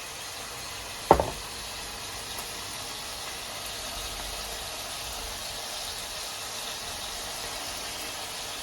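Chicken pieces sizzling steadily as they fry in oil in a pan, with one sharp knock about a second in.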